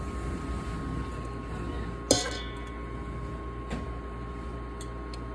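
Metal utensil clinking against a stainless steel bowl of fried potato cubes as they are scooped out: one sharp, ringing clink about two seconds in and a softer knock a little later.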